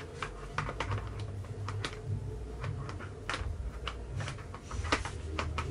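Irregular plastic clicks and knocks as a child snack tray with cup holders is fitted onto a Chicco Viaro stroller's front bar.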